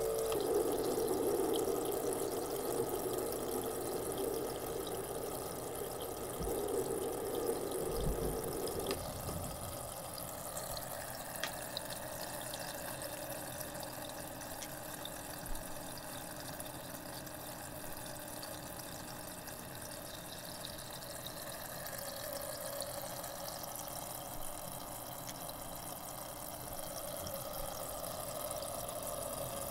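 A Homedics Soothing Sounds machine playing a recorded running-water sound through its speaker, a steady hiss. Its character changes about nine seconds in.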